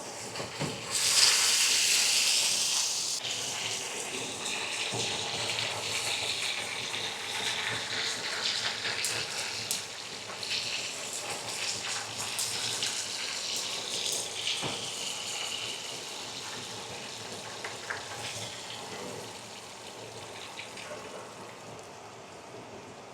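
Oxtail pieces sizzling in hot oil and brown sugar in a frying pan, a loud surge of sizzle about a second in as meat goes into the pan, then a steadier sizzle with scattered light clicks that dies down toward the end.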